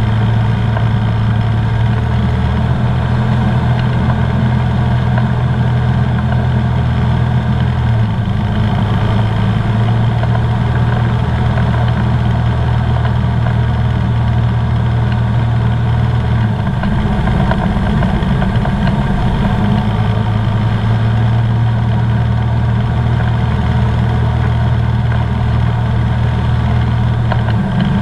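Comco Ikarus C42B ultralight's engine and propeller droning steadily, heard from inside the cockpit on final approach; the low drone changes pitch a few times.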